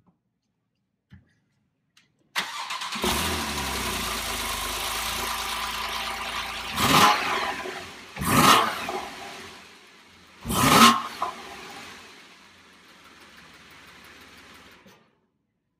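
A 2013 Porsche 911 Carrera's 3.4-litre flat-six starts up: a brief crank, then it catches into a high cold-start idle. Three quick blips of the throttle follow, after which it settles to a quieter idle.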